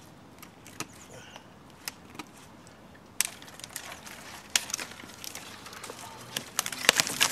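Knife working a dead branch, giving a few separate light cracks. From about three seconds in, dense crackling and snapping of dry twigs and brush underfoot and against the body, loudest near the end.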